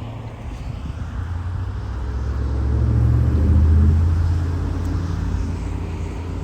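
A motor vehicle's low engine rumble, growing louder to a peak about four seconds in and then easing off.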